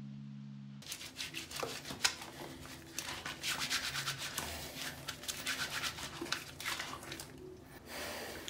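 A held low musical tone cuts off about a second in. Close rubbing and scratching with many small clicks follows, like hands or a brush working right at the microphone.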